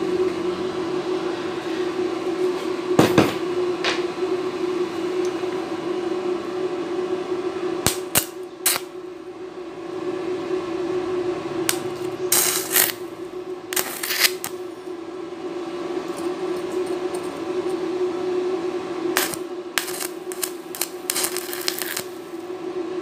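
Arc from a stick (SMAW) welder with a 2.5 mm electrode, tacking thin 1.5 mm square tubing: short crackling bursts as the arc is struck, a few early, longer ones near the middle and a cluster near the end, over a steady hum.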